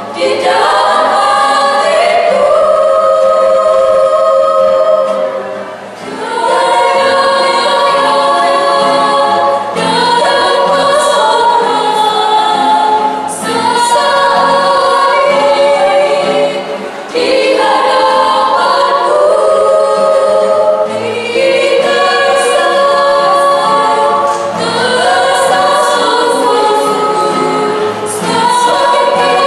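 Female vocal group singing in close harmony, several voices in parts, in phrases separated by short breaks.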